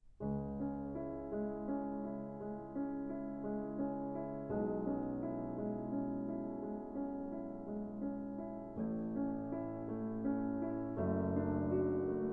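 Background music: gentle piano or electric piano playing sustained chords with a repeating note pattern, the chord changing about every four seconds.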